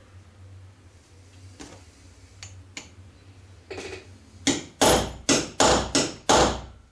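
Hammer striking a steel pin punch: about six sharp metal-on-metal blows in quick succession, starting about four and a half seconds in, after a few light clicks of steel parts being handled. The blows drive out a straight pin pressed tightly into the steel arm of a clamp knurler.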